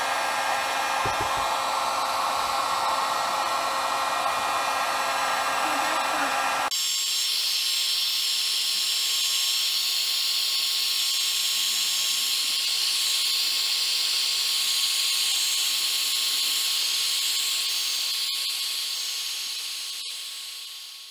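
1500-watt heat gun blowing steadily, heating an aluminium engine crankcase half so the crank bearing will slide into its bore. About a third of the way in, its sound abruptly turns higher and thinner. It fades away near the end.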